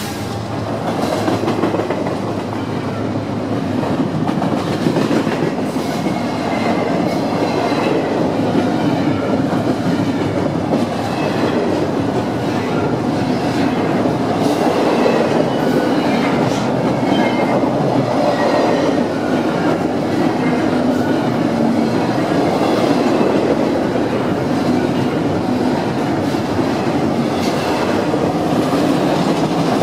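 Double-stack intermodal freight train's container well cars rolling past at close range: a steady rumble and clatter of steel wheels on the rails, with occasional faint high wheel squeals.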